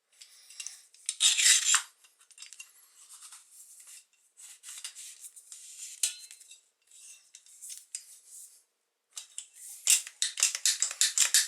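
Handling noises from working with the boilie gun and dough: intermittent rustling with light clicks and clinks, loudest about a second in and in a quick run of clicks near the end.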